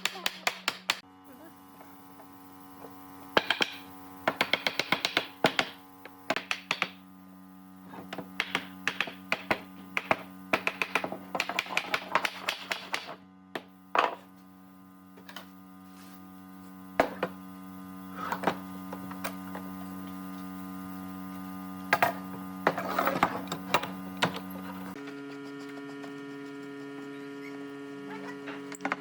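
A steady machine hum runs under bursts of sharp clicking and tapping, often in quick runs of several a second. About 25 seconds in the hum drops abruptly to a different pitch.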